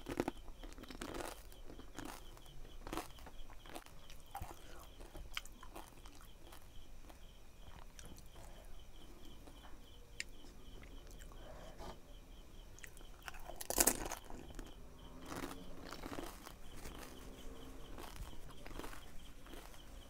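Crisp pani puri shells being bitten and chewed with a full mouth, a run of wet crunches and chewing. The loudest crunch comes about two-thirds of the way through.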